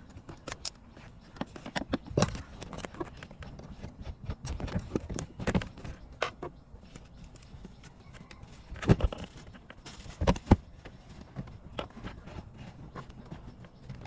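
Screwdriver and plastic centre-console trim around a manual gear lever: scattered clicks, taps and scrapes, with two sharper knocks about nine and ten seconds in.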